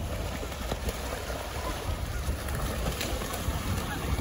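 Wind buffeting the microphone outdoors: a steady low rumble under a hiss of open-air noise.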